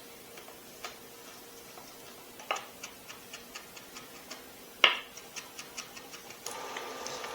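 Knife chopping dill on a cutting board: light taps that settle into a quick, even run of about four a second, with two louder knocks. Near the end a steady hiss sets in.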